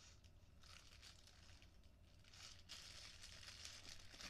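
Faint crinkling and rustling of a clear plastic bag being handled, in short patches that grow a little louder after the middle.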